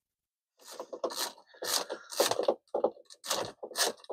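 Window roller blind being pulled down: a run of short scraping strokes, about three a second, starting about half a second in and lasting about three seconds.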